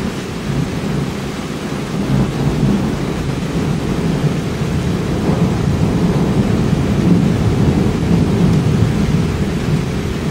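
Thunder rumbling after a nearby lightning flash: a long, deep rumble that swells about two seconds in and stays loud for several seconds, over the steady hiss of rain.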